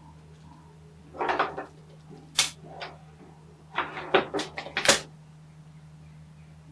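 Hard plastic clicks and clatter from a screwdriver and its plastic bit case being handled: a cluster of knocks about a second in, a sharp click at about two and a half seconds, and a quick run of clicks between about four and five seconds.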